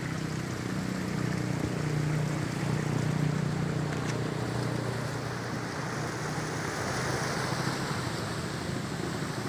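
Sea waves breaking and washing over a rocky reef shore: a steady rush of surf, with a low hum underneath that fades about halfway through.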